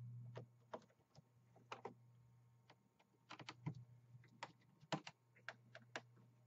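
Faint, irregular small clicks and ticks of a Phillips screwdriver working the screws out of a laptop's plastic bottom cover.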